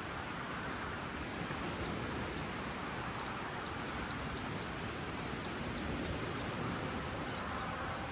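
A small bird chirping, a quick series of short high chirps from about two seconds in until near the end, over a steady rushing background noise.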